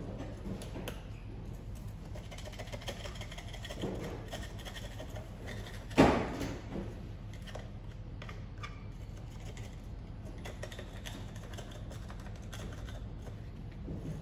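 Small metal tools and engine parts clicking and tapping during hand work on a brush cutter's carbon-clogged exhaust, with one sharp knock about six seconds in, over a steady low hum.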